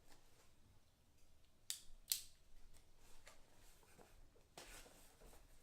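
Product packaging being cut or pried open by hand: two sharp snips or clicks about half a second apart near the middle, then faint rustling of handling.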